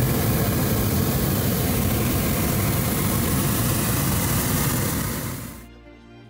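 Hot air balloon's propane burner firing, a loud steady blast with a deep rumble that stops about five and a half seconds in, dying away quickly.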